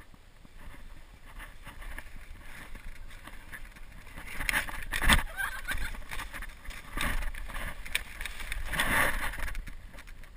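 Wooden sled on metal runners sliding and scraping down snow, the rushing noise building as it speeds up, with a hard bump about five seconds in and another loud swell of scraping near nine seconds.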